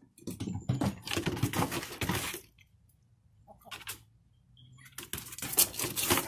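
Scuffling and clicking on wooden deck boards as a dog darts around a hen, in two spells with a quiet gap of about two seconds between them.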